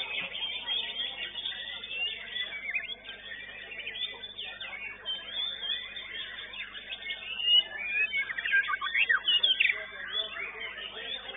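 Several white-rumped shamas (murai batu) singing at once in a contest: a dense, continuous tangle of fast high whistles and trills that sweep up and down, growing loudest about two-thirds of the way through. A faint steady hum lies underneath.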